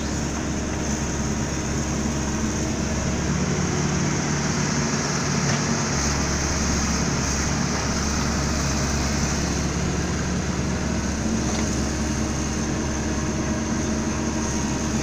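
Dump truck's engine running steadily at a constant speed.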